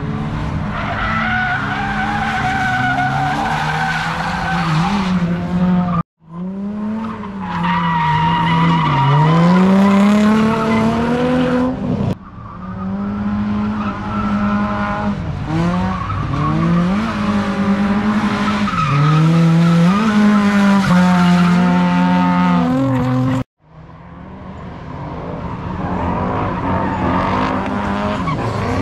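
Drift cars' engines revving hard, the pitch swinging up and down with throttle and gear changes and held high at times, over continuous tyre squeal. The sound breaks off sharply three times and restarts at a different pitch.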